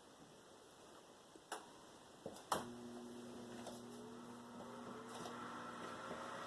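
Whirlpool convection oven: a relay clicks, then the convection fan motor starts with a steady hum, and a fainter whine rises slowly in pitch as the fan spins up during preheat.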